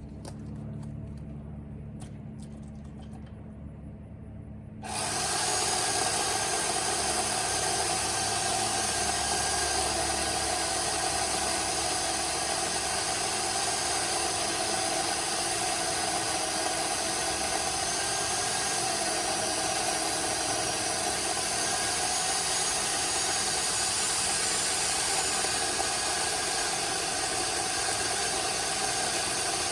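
Electric pole chainsaw (Remington Ranger II) starting up suddenly about five seconds in, after a low rumble and a few clicks. It then runs steadily at full speed, its motor and chain whining, while cutting through a thick dead ash trunk.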